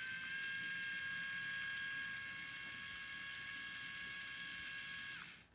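Small Bluetooth app-controlled LEGO-compatible motor running at a steady speed with a high, even whine. It winds down and stops near the end.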